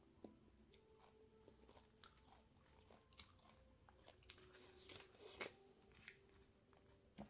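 Faint mouth sounds of someone eating pork curry: chewing with scattered small clicks and a few louder short bites, the loudest about five seconds in.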